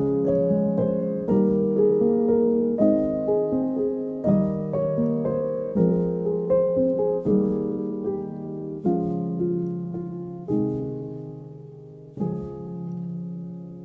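Gentle instrumental background music: notes struck and left to ring out, growing softer toward the end until a new chord comes in near the end.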